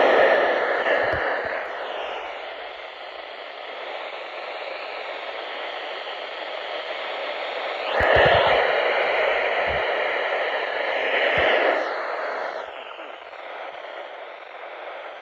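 Radio static: a steady hiss from a weather radio receiver with no voice on it. It swells louder at the start and again for a few seconds just after the middle, with a few faint clicks.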